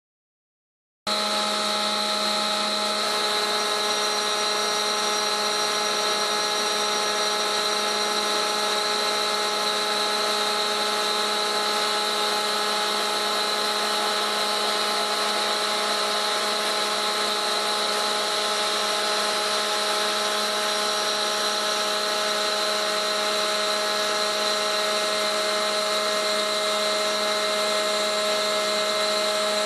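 A machine motor running at constant speed, a steady whine with several fixed tones that comes in abruptly about a second in and holds unchanged.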